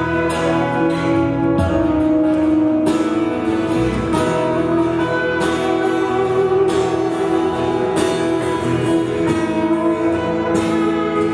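A live church band plays a gospel hymn on electric guitar, bass guitar, Yamaha keyboard and drums, with sustained keyboard chords and repeated drum and cymbal hits.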